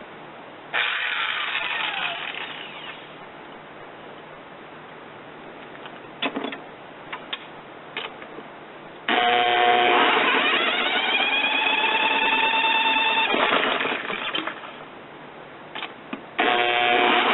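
Electric power drill motor whining in three bursts as it tries to spin the lawn mower engine over, each run with a rising pitch as the drill comes up to speed. A few short clicks come between the second and third runs.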